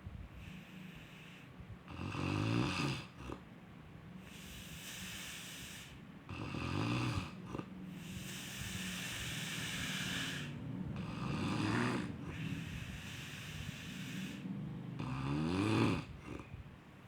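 Snoring, slow and regular: about four low, rasping snores, each followed by a long airy hiss of breath.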